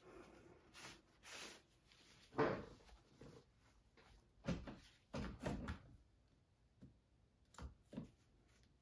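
Faint handling sounds of work at a painting table: a series of short rubs and knocks, the loudest about two and a half seconds in.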